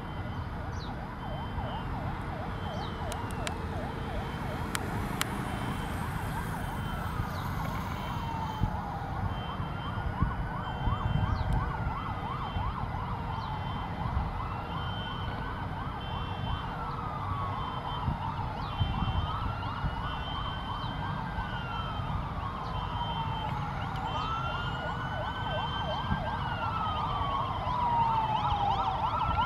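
Sirens of a fire-truck and police-escort convoy sounding together. A slow wail rises and falls about every four seconds over a fast warbling yelp, with engine rumble beneath, and the yelp grows louder near the end.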